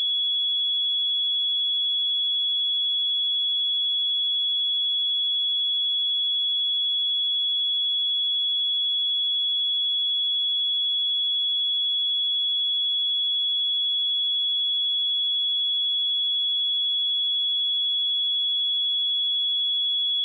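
A single 3372 Hz sine-wave test tone, a steady high-pitched pure tone held at constant pitch and level.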